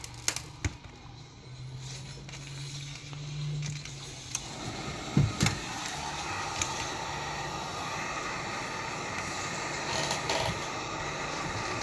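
Hot-air heat gun blowing steadily, heating the tablet's glass to soften the adhesive under the digitizer, starting up about four and a half seconds in. A few sharp clicks and knocks of tools on the tablet come before and just after it starts.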